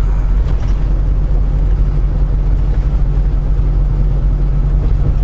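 Semi truck's diesel engine running at a steady cruise with road noise, a continuous low drone with no change in speed.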